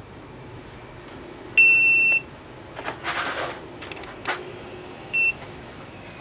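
Electronic beeps from a Motoscan diagnostic setup as it starts registering a new key fob to a motorbike smart-key unit. A single long, high beep comes about one and a half seconds in, and a short beep follows near the end, with a brief rustle and a click between them.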